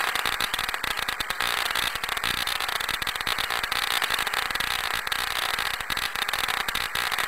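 Kinraide pancake Tesla coil being tested on low power, about 50 watts to its main transformer, with a spark arcing between its two brass ball electrodes. The spark crackles steadily, a dense, fast rattle of tiny snaps.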